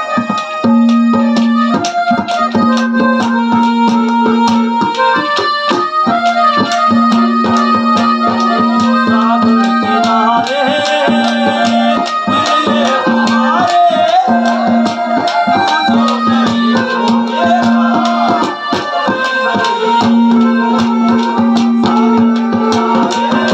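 Live ragni accompaniment band playing an instrumental passage: a keyboard-like melody over a held low drone note, with fast hand-drum strokes.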